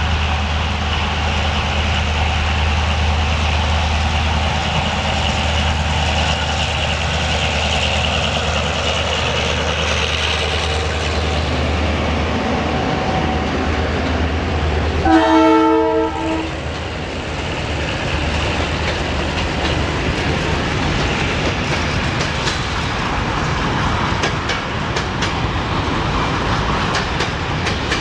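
Diesel locomotive engine running with a steady low drone, then one horn blast of about a second and a half about halfway through, the loudest moment. After it the drone fades and the train rolls past, wheels clicking over the rail joints.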